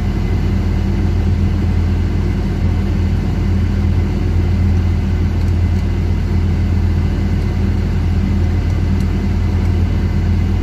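Steady, loud low drone of running machinery aboard a fishing vessel: a constant deep hum that holds the same pitch and level throughout.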